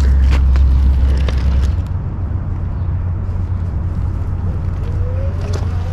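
A heavy motor vehicle's engine running with a loud, low, steady drone that steps up a little in pitch about two seconds in; a faint rising whine comes in near the end.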